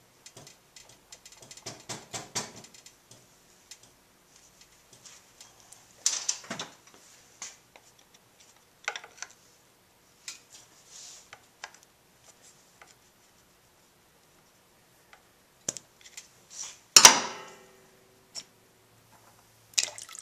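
Small metallic clicks and clinks of hand tools and 8 mm bolts as the oil filter cover is unbolted and pried off a Kawasaki KLR 650 engine. A quick run of ticks comes early, then scattered knocks, and about three-quarters of the way through one loud metal clank that rings briefly.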